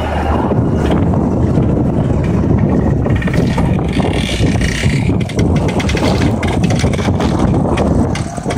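Hürlimann Master 165 tractor's engine running steadily under heavy load, pulling a four-furrow reversible plough through the soil.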